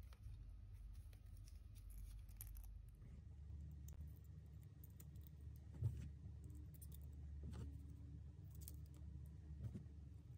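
Small metal model-kit parts clicking and rattling faintly as they are handled and fitted together, with one sharper click about six seconds in.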